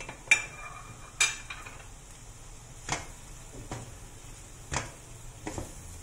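A wooden spatula stirring chopped onions into a thick meat paste in a wok, scraping and knocking against the pan. Two sharp ringing clinks come in the first second, then softer knocks about once a second.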